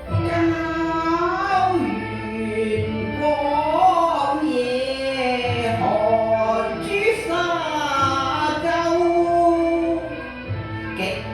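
Cantonese opera-style music: a single melody line with sliding, ornamented pitch bends over continuous accompaniment.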